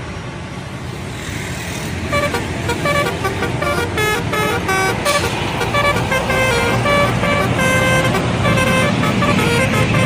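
Indonesian bus 'telolet' melody horn playing quick runs of short notes that jump in pitch, starting about two seconds in. Underneath is bus engine and road noise.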